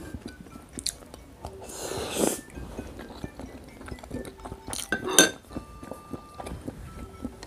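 Close-up eating sounds: chewing, with a short scraping rustle about two seconds in and utensils clinking sharply against a bowl about five seconds in, over soft background music.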